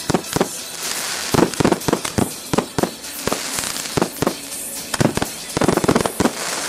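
Fireworks display: aerial shells launching and bursting in a rapid, irregular string of sharp bangs, several a second, with crackling between them.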